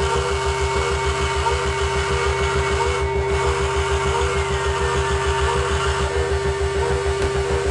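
Electronic music played live on synthesizers and keyboard: a fast pulsing bass, about six pulses a second, under a steady drone and a high held tone that glides down about five and a half seconds in. The upper sounds drop out briefly about three seconds in.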